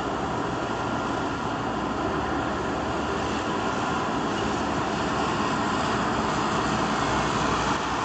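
Recorded engine noise of military vehicles or aircraft playing as the soundtrack to a stage mime: a steady, dense rumble with no words, growing slightly louder near the end.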